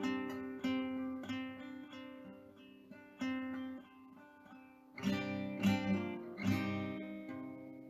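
Background music: acoustic guitar played with plucked notes and strums that ring and die away, with a few louder strums about five seconds in.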